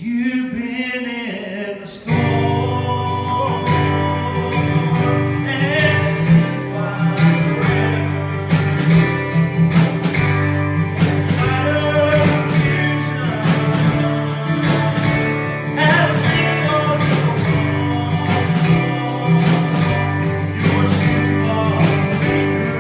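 Live country-style worship music with acoustic guitar strumming and a singing voice. The music fills out with a steady beat about two seconds in.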